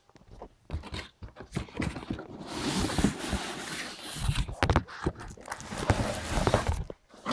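A cardboard box and its plastic-wrapped contents being handled as a radio-control transmitter is pulled out of its packaging: irregular knocks and scrapes, with two longer stretches of rustling and sliding.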